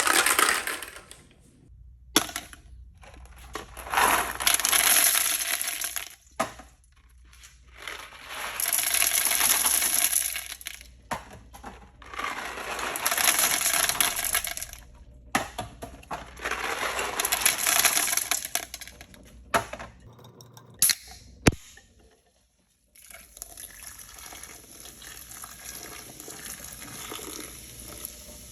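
A toilet flushing again and again: four loud rushes of water, each about two seconds long, with sharp clicks and knocks between them.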